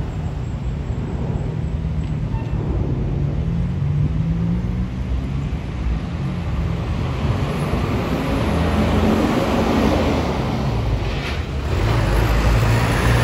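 Steady low jet-engine rumble of an Airbus A319 airliner climbing away overhead, swelling louder over the last few seconds.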